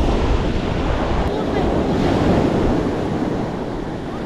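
Surf breaking and washing up a sandy beach, with wind buffeting the microphone. The wash swells a little about halfway through.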